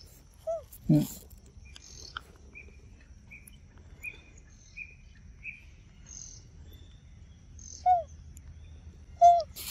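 Forest ambience: a bird repeats a short note about once every two-thirds of a second, over a steady high insect hum. A few short, louder squeaky calls fall in pitch, the loudest near the end, and there is a thump about a second in.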